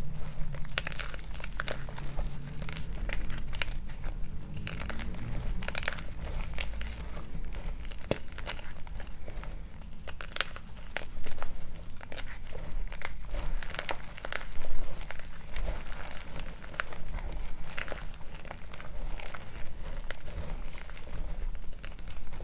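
Hands squeezing and kneading chunks of gym chalk through thick chalk paste, the chalk crunching and crumbling in a dense run of small crackles. The loudest crunches come about eleven and fifteen seconds in.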